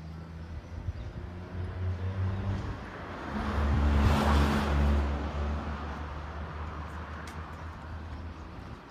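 A car driving past: a low engine hum that swells to its loudest about four seconds in with a rush of tyre and road noise, then fades away.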